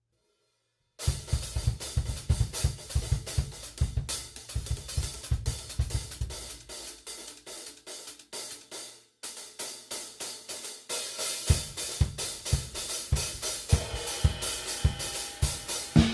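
Drum kit being played, with hi-hats, crash cymbals and snare over a steady bass drum. The kit has two hi-hats, three crash cymbals and a splash. The playing starts about a second in, stops briefly near nine seconds, and comes back with a heavier bass drum from about eleven and a half seconds.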